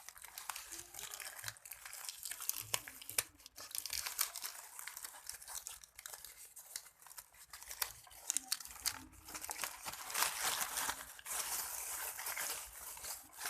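Plant packaging crinkling and crackling as it is handled and unwrapped, with many small sharp crackles, busiest from about ten seconds in.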